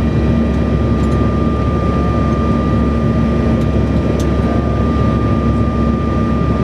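Steady cabin drone of a Bombardier CRJ700 in flight: a low rumble from its rear-mounted GE CF34 turbofans and airflow, with a few steady whining tones over it that do not change.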